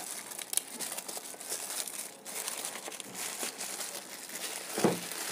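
Plastic courier mailer bag crinkling and rustling as it is cut and pulled open by hand, with a brief louder sound near the end.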